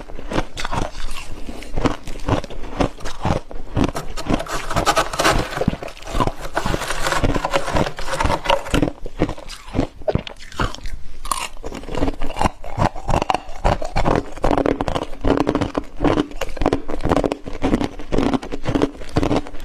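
Freezer frost being bitten and chewed, a continuous run of rapid, irregular crunches.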